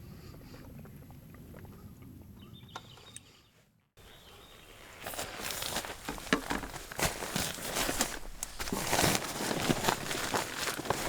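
Quiet outdoor background that fades out just before four seconds in, then a dense, irregular run of crunching and crackling noises.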